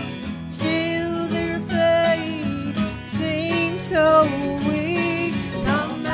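Country-gospel song performed live: a singing voice with vibrato over strummed acoustic guitar.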